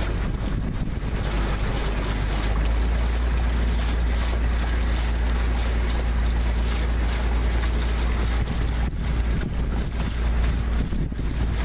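A boat's engine running steadily underway, with wind rumbling on the microphone.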